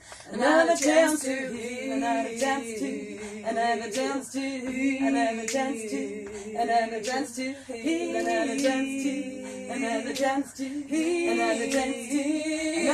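Three female voices singing a cappella in layered harmony, with held notes and shifting chords, coming in together at the start.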